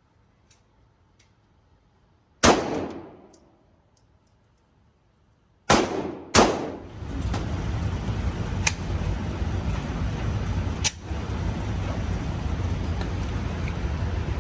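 Glock pistol shots: one shot a couple of seconds in, ringing out for about a second, then two more shots close together about three seconds later. A steady low rushing noise then sets in, with a couple of sharp clicks in it.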